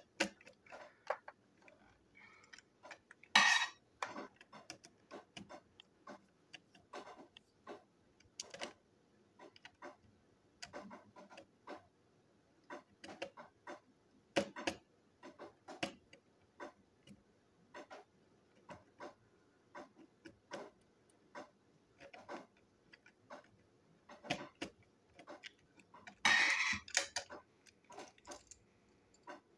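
Precision screwdriver clicking and scraping in the screws of a plastic Plarail Caitlin toy train chassis as they are driven in: a run of light, irregular ticks. Two louder rustles of handling, about three seconds in and near the end.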